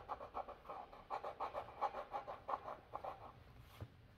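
Coloured pencil scribbling back and forth on paper, shading in a drawing, with about four to five quick strokes a second. The scribbling stops about three seconds in, and a single knock follows near the end.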